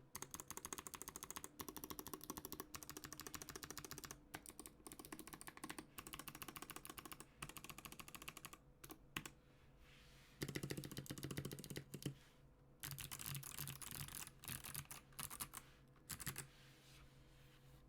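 Typing on an NK65 mechanical keyboard with clicky Kailh Box Jade switches: rapid, crisp key clicks in runs with short pauses. There is a louder run about ten seconds in, and the typing stops near the end.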